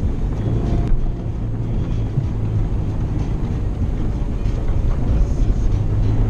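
Four-wheel drive running along a dirt bush track, heard from inside the cabin: a steady engine drone with tyre and road rumble.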